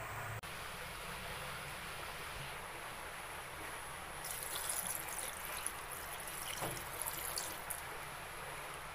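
Sprite poured over raw chicken pieces in a plastic bowl, trickling and fizzing for about three and a half seconds, starting around four seconds in, over a steady background hiss.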